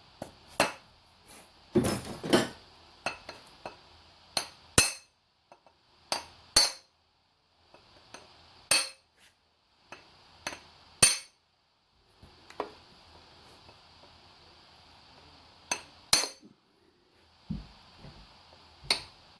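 Irregular metallic hammer taps, often in pairs a fraction of a second apart, each with a brief clinking ring, as the rear main seal wear ring on a 7.3 Powerstroke crankshaft is tapped down to make sure it is fully seated.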